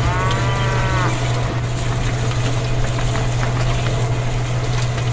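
Small electric motor of a miniature cement mixer running steadily, a low hum with a rattly mechanical noise. In the first second a cow's moo, about a second long, sounds over it.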